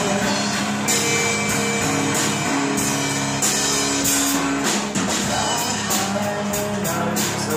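A small rock band playing live: electric guitar and drum kit with cymbal strokes keeping a steady beat.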